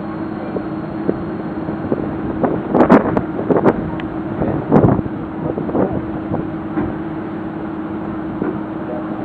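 The boat's engine running with a steady hum, with wind and water noise on the microphone and a few louder thumps about three and five seconds in.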